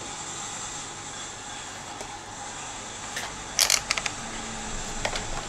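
Small charger parts and tweezers clicking as they are handled and set down on a work mat. A quick cluster of sharp clicks comes a little past halfway and a couple more near the end, over a steady background hiss.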